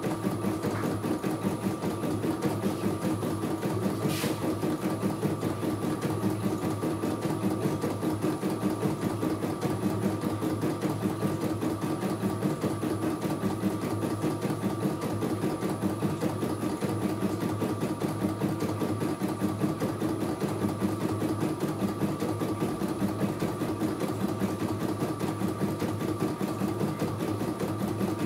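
CNY E900 computerized embroidery machine stitching a design, with a steady, rapid needle rhythm and a constant whine. A single short click comes about four seconds in.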